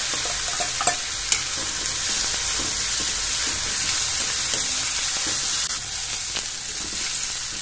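Chopped onions sizzling in hot oil with a spice tempering in a kadai as they are stirred with a steel spoon. There are two sharp clicks of the spoon against the pan about a second in.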